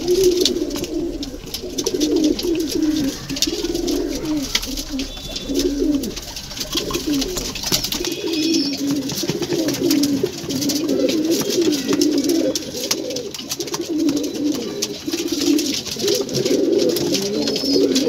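Domestic pigeons cooing, one low coo after another with only short gaps between them.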